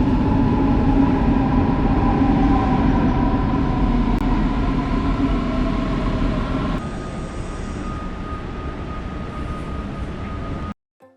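Train running on rails: a loud, steady rumble with slowly falling tones. Partway through it cuts to a quieter shot with a steady high tone, and the sound stops abruptly near the end.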